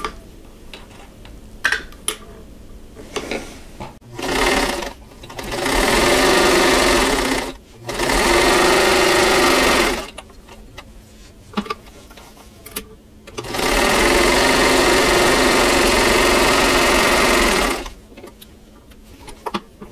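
1952 Singer 15-91 sewing machine stitching a straight seam through two pinned layers of quilting cotton. It runs in three steady spells of a few seconds each, stopping and starting between them, with light clicks of handling in the pauses.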